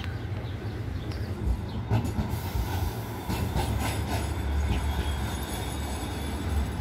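Modern city tram passing close by: a steady rumble of its running, joined from about the middle by a high thin squeal of steel wheels on the rails. The sound cuts off suddenly at the end.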